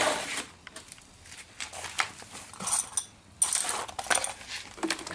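Scattered light metallic clinks and rattles, a couple of them with a brief high ring about three seconds in, from metal tools and parts being handled and set down.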